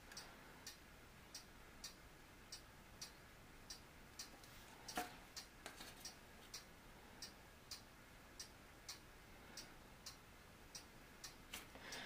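Near silence with a faint, regular ticking, about three ticks every two seconds, and one slightly louder tap about five seconds in.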